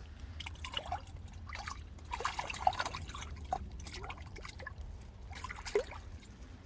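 Water dripping and trickling in small splashes, with irregular plinks that bunch up about two seconds in and again near the end, as a freshly caught fish and wet line are handled over the water.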